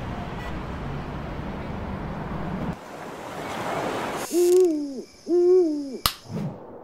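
Two owl hoots about a second apart, each a pitched call that rises, holds and falls, after a steady rushing like wind or surf. A sharp click follows shortly after the second hoot.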